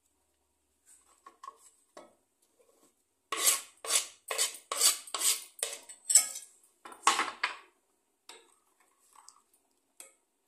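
Kitchen knife working freshly chopped coriander on a wooden board and into a glass bowl: a few light taps, then from about three seconds in a quick run of about nine sharp scraping strokes, roughly two a second, that stops near eight seconds.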